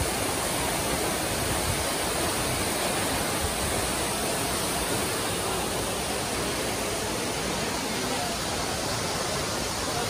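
Waterfall pouring down a rock cliff into a pool: a steady, even rush of falling water.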